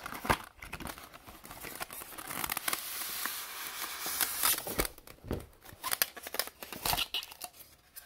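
Cardboard box and polystyrene foam packaging being handled: the end flap is opened, the foam insert is slid out against the cardboard and its top half lifted off. Scattered sharp clicks and knocks, with a longer rubbing scrape about halfway through.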